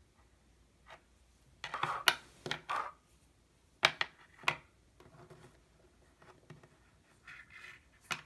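A braided USB Lightning charging cable being handled and coiled on a wooden tabletop: scuffs and rustles, with sharp clicks about four seconds in and again near the end.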